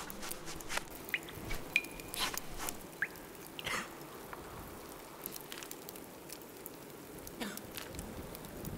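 Soft, scattered clicks and crackles at irregular intervals, with a short high chirp just under two seconds in and a brief rising chirp about a second later.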